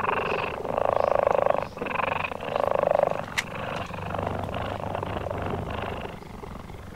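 Cheetah purring in a rough, rattling rhythm that swells and fades with each breath, about once a second, growing softer after about three seconds. The purr is a sign of a relaxed, contented cat.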